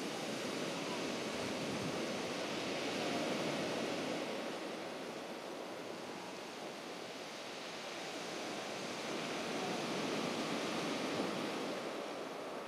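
Surf washing onto a beach: a steady rush of waves that swells and eases twice, peaking about three seconds in and again near ten seconds.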